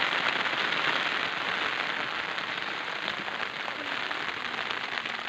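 Steady rain falling, a continuous even hiss of drops.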